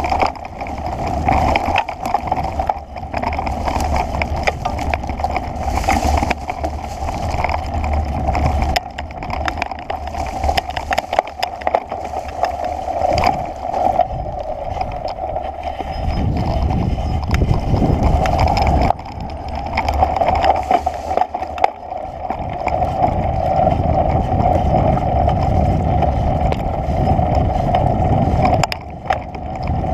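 Bicycle ridden along a bumpy dirt trail: continuous rolling and rattling of the tyres, frame and camera mount over the ground, with dense small clicks and knocks and a low rumble that swells and eases as the surface changes.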